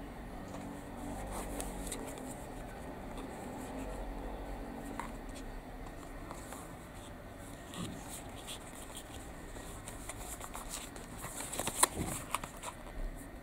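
Cardboard toy box handled in the hands: fingers rubbing and gripping the card with a soft rustle, then a run of sharper clicks and taps near the end as the box is turned over.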